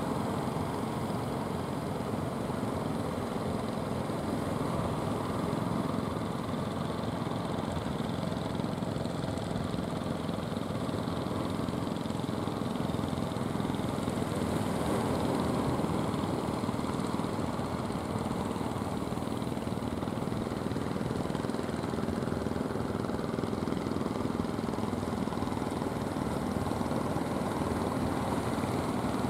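Motorized wooden outrigger fishing boat's engine running steadily as the boat motors past.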